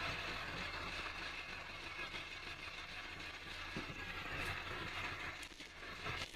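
Steady vehicle noise: a constant low engine and road rumble with a few faint knocks.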